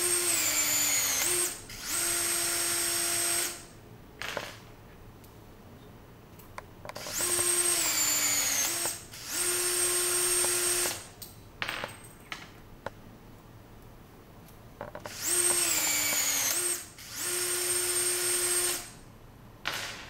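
Brushless motor of a cordless rivet tool running through three cycles. Each cycle is a whining run of just over a second that falls in pitch, a short pause, then a steady-pitch run as the mandrel automatically reverses. Light clicks come between cycles.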